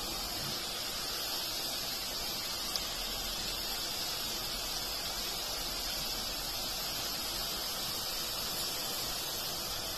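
Besan sev strands deep-frying in hot oil: a steady sizzling hiss of bubbling oil, with one faint click a little under three seconds in.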